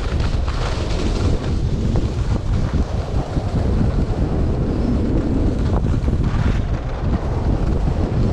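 Wind buffeting the microphone of a skier moving downhill, a loud, unbroken rumble, with the skis scraping over groomed snow underneath.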